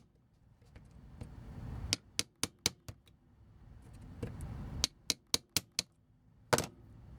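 Quick runs of sharp clicks, five or six at a time, in two bursts, then a single louder click near the end. A small tool is being worked against hard plastic to push a rear-wheel bolt out of a vintage G1 Transformers toy.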